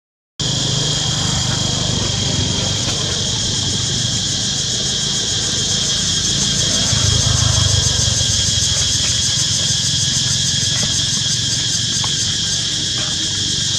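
Insects, likely cicadas, droning steadily in a high, fast-pulsing chorus over the low rumble of a motor vehicle engine, which grows louder about seven seconds in.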